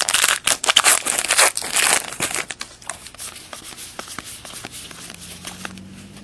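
Foil wrapper of a 2011 Topps Allen & Ginter card pack being torn open and crinkled for about two seconds. After that come fainter clicks and rustles as the cards from the pack are handled and flipped through.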